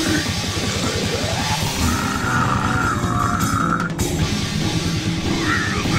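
Grindcore music: fast blast-beat drumming under a wall of distorted guitar noise, with a high wavering squeal from about two seconds in and again near the end.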